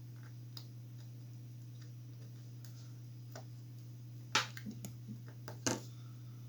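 Small clicks and taps as a trimmer potentiometer is pressed into a breadboard, with two louder sharp clicks about a second apart in the second half, over a steady low hum.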